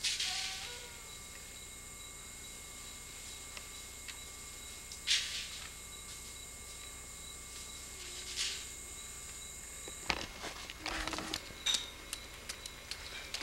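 Insects droning steadily in a high, even tone, broken by a few brief rushes of noise. The drone stops about ten seconds in, and a scatter of clicks and knocks follows.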